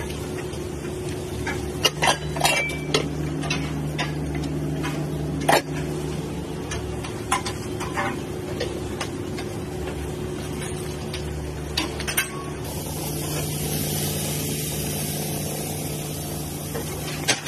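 Scattered clinks and knocks of a metal tray and kitchen utensils being handled over a steady mechanical hum. About thirteen seconds in, an even hiss of bacon sizzling on a flat-top griddle sets in.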